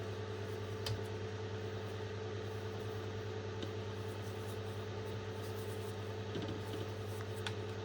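Steady low mechanical hum, with a faint click about a second in and another near the end.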